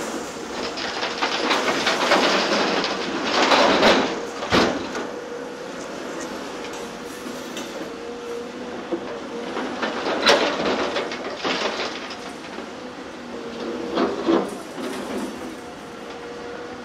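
Caterpillar 336F LN excavator working, a steady machine din with scraping and three sharp knocks spread through it.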